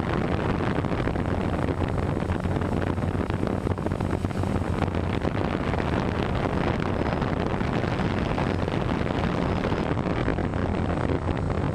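Steady hum of electric motors and propellers with wind rushing over the microphone, heard from a camera riding on a flying RC aircraft.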